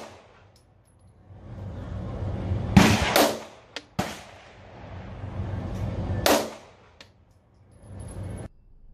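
Semi-automatic pistol fired twice, about three and a half seconds apart. Each shot is a sharp crack with a short ringing tail, heard over a steady background rush.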